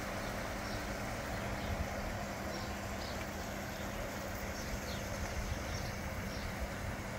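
Narrowboat's diesel engine idling, a steady low hum and rumble under a wash of noise. Faint short high chirps come and go throughout.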